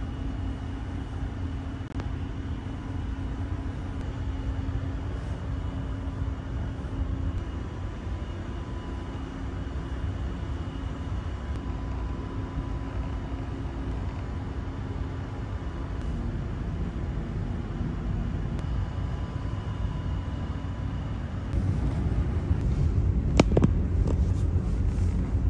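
Steady low rumble and hum of a passenger ferry's engines and ventilation, heard inside the ship's corridors. It grows louder about 21 seconds in, with a sharp knock near the end.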